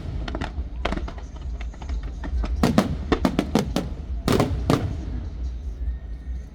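Aerial fireworks shells bursting: about a dozen sharp bangs at irregular intervals, several in quick clusters around the third second and again near the fifth, over a steady low rumble.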